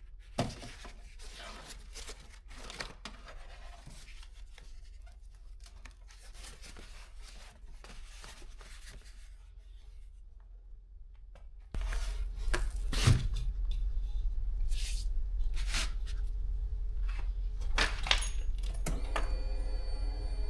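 Foam vapor barrier being peeled off a car door's sticky sealant, giving soft tearing and peeling sounds with small clicks. The sounds are faint at first and come in several sharper rips in the second half.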